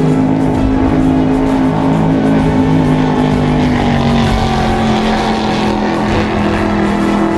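Offshore racing powerboat's engines running at full throttle on a high-speed run, a loud steady drone whose pitch sags slightly about halfway through.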